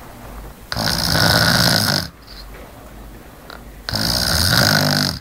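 A person snoring in deep sleep: two loud snores about three seconds apart, each lasting a little over a second, with quieter breathing between them.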